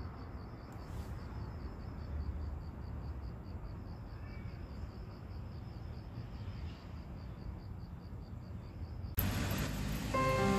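Outdoor ambience: an insect, cricket-like, chirping in a high, even pulse about four times a second over a low rumble. Music starts near the end.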